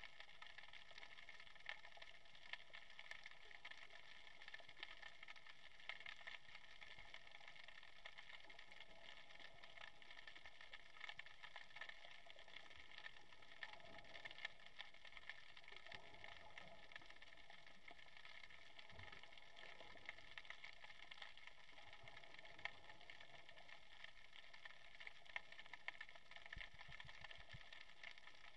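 Faint underwater ambience: a steady low hiss with dense fine crackling and a few soft low bumps.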